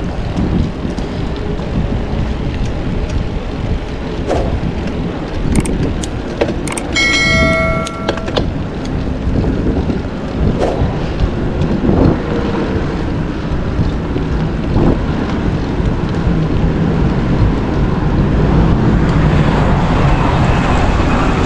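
Wind rushing over the microphone and tyre and road noise from a bicycle riding uphill. A short bell-like ding rings out about seven seconds in.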